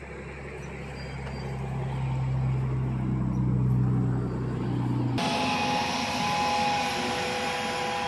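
Engine drone growing steadily louder over about five seconds, then an abrupt change to a steadier hum with several held tones.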